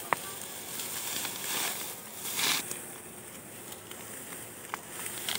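Dry, cut wheat stalks rustling and crackling as they are gathered by hand and pressed into a sheaf for tying, with two louder swells of rustling and a few sharp snaps.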